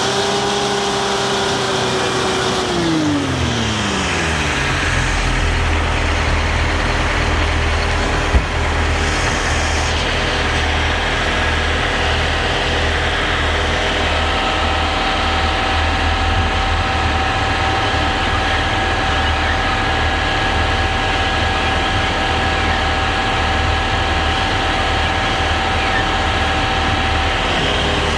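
Detroit Diesel 8V-71N two-stroke V8 diesel held at raised speed, then dropping back over a couple of seconds to a steady idle. A single sharp knock comes about eight seconds in, and a faint steady whine joins about halfway through.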